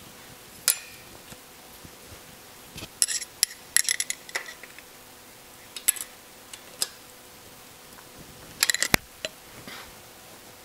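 Hand tools clinking against the rocker arms and adjusters of an air-cooled Porsche flat-six while the valve clearance is set and the adjuster locknut tightened. Sharp metallic clicks come singly and in short clusters, with busy runs a few seconds in and near the end.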